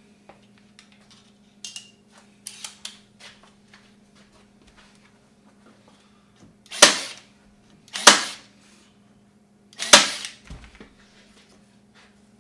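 Staple gun firing three times, sharp loud shots about a second and two seconds apart, driving staples through fabric into a wooden panel frame. A few lighter clicks and taps come before the shots.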